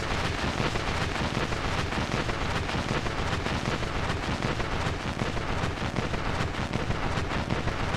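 Surface noise of a 1945 instantaneous lacquer (acetate) home-recorded disc playing on a turntable: a steady hiss thick with crackle, cutting off suddenly near the end.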